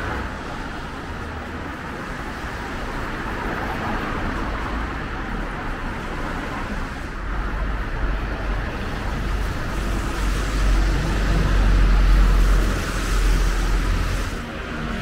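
Street traffic, with a motor vehicle's low rumble building to its loudest about two-thirds of the way through as it passes close, then falling away near the end.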